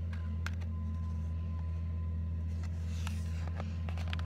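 A steady low engine-like hum that holds level throughout, with a few faint clicks and a brief rustle about three seconds in.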